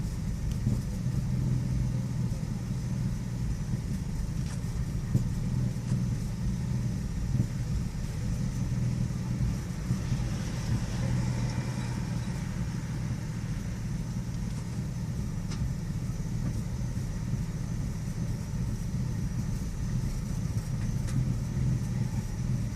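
2001 Nissan Xterra engine idling roughly, running with an uneven, fluctuating note; the owner reports an intermittent rough idle along with a misfire problem.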